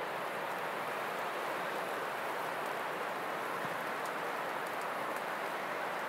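Steady wind rushing through snowy woodland trees, an even hiss with no distinct events.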